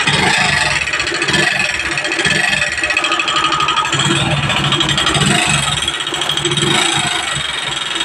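Hero Splendor Plus single-cylinder four-stroke engine running with heavy mechanical noise from the bottom end, which the mechanic takes for a faulty crankshaft (crank noise).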